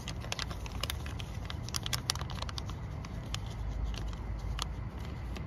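Crinkling and light clicking from a plastic parts bag being handled, thick in the first couple of seconds and thinning out after, over a low steady rumble.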